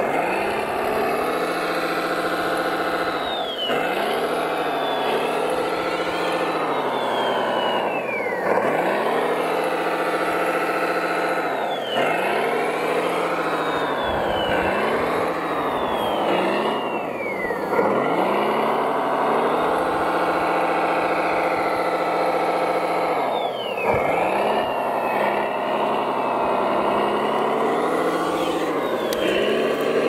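Engine sound of an RC model truck, running steadily with its pitch falling sharply and climbing again every few seconds.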